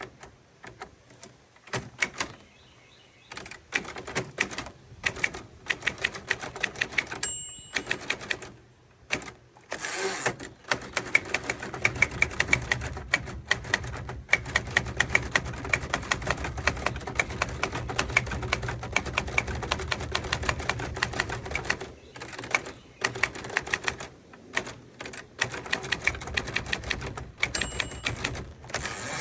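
Typewriter keys struck in quick runs with short pauses between. Twice, about seven seconds in and again near the end, a short high ding rings out: the typewriter's margin bell, warning that the carriage is nearing the end of the line.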